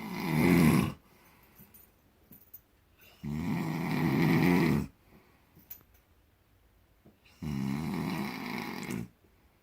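A sleeping man snoring: a snore ending about a second in, then two more long snores, each about a second and a half, coming about four seconds apart with quiet between.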